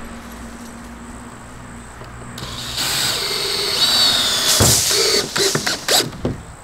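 Cordless drill driving a screw through a 2x4 roof purlin: the motor starts about two and a half seconds in and runs with a whine, then ends in several short stop-start bursts and sharp knocks as the screw is driven home.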